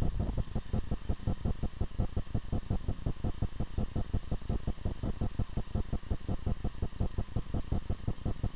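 Crested porcupine rattling its hollow tail quills, a fast, even rattle of about ten strokes a second: the porcupine's warning display to a predator.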